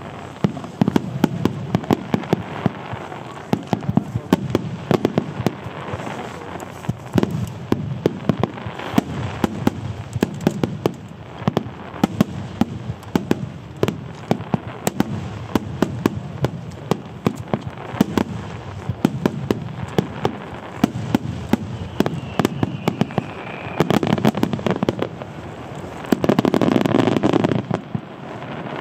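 Fireworks finale: a dense starmine barrage of aerial shells bursting in rapid, overlapping sharp cracks and booms. It builds to a louder, sustained run of bursts near the end.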